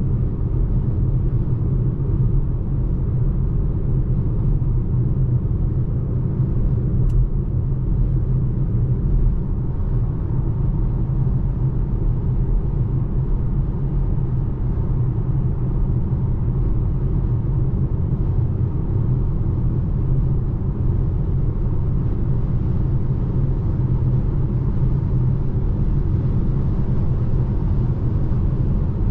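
Steady low road and tyre rumble of a 2021 Volvo C40 Recharge Twin electric car on the move, with no engine note, only a faint click about seven seconds in.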